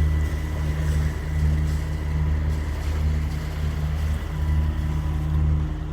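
Diesel engine of a Lagoon 46 catamaran running steadily under motor in a flat calm, a low, evenly pulsing hum with a faint steady high tone above it.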